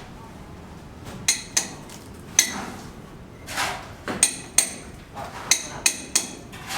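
Hammer striking a steel chisel: about eight sharp metallic strikes with a ringing tone, coming at an uneven pace, often in quick pairs.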